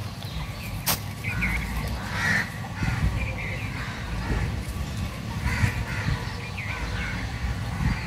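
Crows cawing repeatedly, short rasping calls, with a sharp click about a second in and a low rumble underneath.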